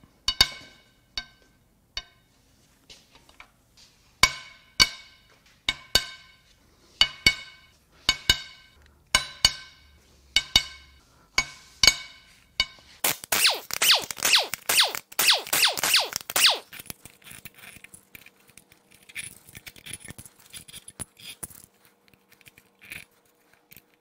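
A breaker bar and socket loosening the cylinder head bolts on a Ford 2.7 L EcoBoost V6: a run of sharp, ringing metallic clicks about twice a second, then a few seconds of rapid clicking as the bolts are run out, then lighter clicks of tool on metal.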